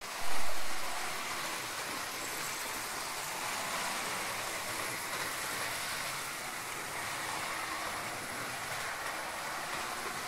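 A model railway train running steadily around the layout track, giving an even whirr of motor and wheels, with a brief louder swell in the first second.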